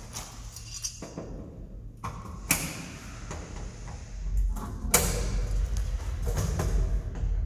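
Metal cable trunking lid being taken off and handled: a few sharp knocks and sliding scrapes about one, two and a half and five seconds in. Low rumbling handling noise fills the second half.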